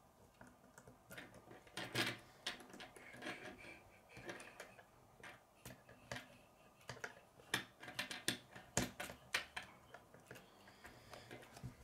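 Plastic K'nex rods and connectors clicking and snapping together as they are handled and fitted: irregular sharp clicks, coming thicker in the second half.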